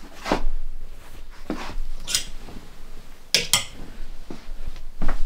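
Clothes hangers clinking and scraping on a wardrobe rail as a garment is hung up: several short clinks and knocks a second or so apart, the sharpest pair about three and a half seconds in.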